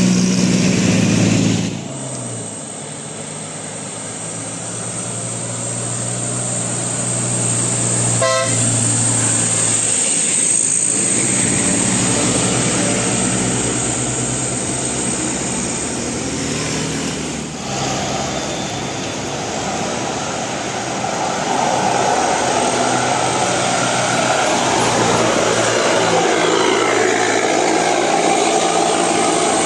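Telolet bus horns tooting over bus engine and road noise, with sudden changes in the sound where clips are cut together.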